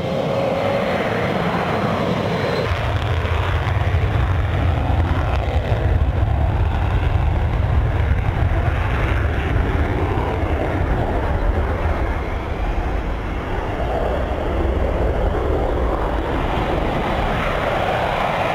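F-16 fighter jet engines on the runway: a whining tone, then about three seconds in a deep, steady roar comes in as the engines spool up for takeoff.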